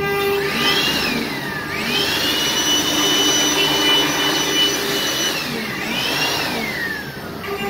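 CNC wood-carving router running, its machine whine rising in pitch, holding a steady high tone for about three seconds, then falling away, with a shorter rise and fall near the start and near the end.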